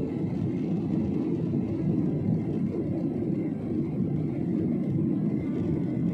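Airliner cabin noise in flight: the jet engines and rushing air make a steady low rumble that stays even throughout.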